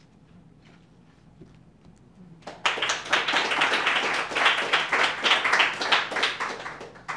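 A small audience applauding, starting suddenly about two and a half seconds in and dying away near the end.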